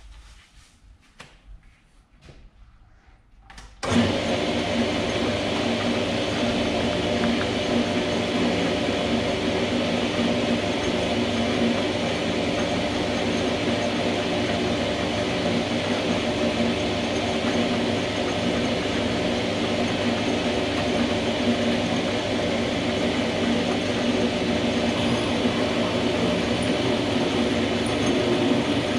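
A few faint clicks, then about four seconds in a small metal lathe starts and runs steadily, its motor and gear train humming with the chuck spinning, while a 5 mm drill in the tailstock feeds into a steel screw held in the chuck.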